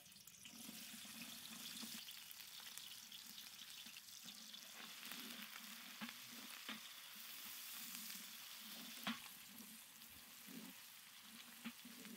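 Sliced onions and green chillies sizzling in hot oil in a large aluminium pot, stirred with a wooden spatula. The sizzle starts suddenly as the onions hit the oil, and the spatula scrapes and knocks against the pot a few times.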